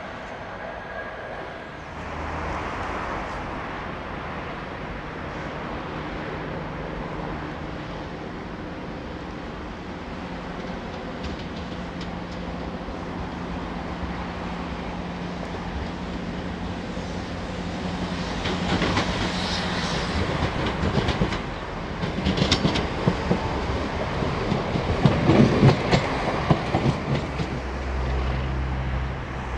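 Diesel trains at a station. A diesel multiple unit's engine hum builds as it approaches, then its wheels clatter over points and rail joints in a rapid run of clacks, the loudest part. Near the end the low, steady running of a pair of diesel locomotives' engines comes in.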